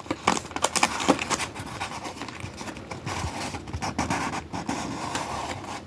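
Card-product packaging being opened by hand. Quick scratching and scraping clicks come first, then a steady rustle of the wrapping and box.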